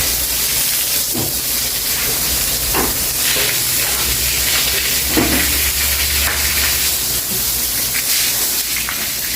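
Broom scrubbing a wet floor: a steady wet hiss with a short stroke every couple of seconds.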